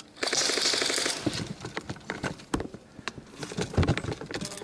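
Airsoft rifle firing a rapid full-auto burst of about a second, followed by scattered sharp clicks and knocks.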